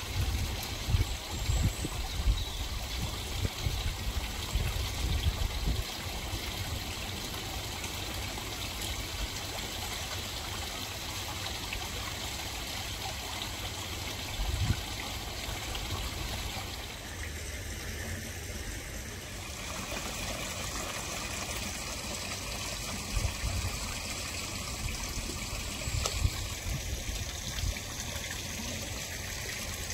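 Water trickling and splashing steadily from a small rock waterfall into a garden koi pond. Low thumps come and go over the first six seconds, once about halfway through, and a few times near the end.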